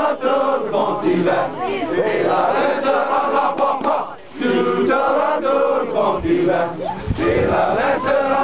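Crowd of costumed Cajun Mardi Gras runners chanting and shouting together, many voices at once, with a brief lull about four seconds in.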